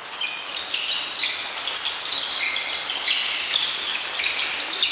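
Many athletic shoes squeaking on a sports hall's wooden floor as a group of players steps and turns, with short, high squeaks overlapping one after another.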